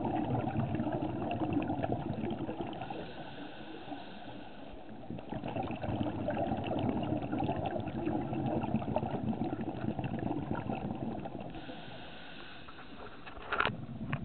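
Scuba divers' exhaled bubbles gurgling and rising past an underwater camera, heard muffled through the housing, in two long spells of bubbling with quieter pauses between. A sharp knock near the end.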